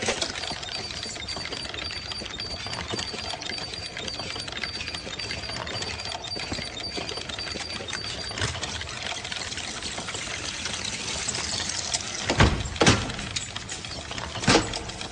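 Small toy bicycle rolling over a rug, its wheels whirring with a fast light ticking, then three sharp knocks near the end.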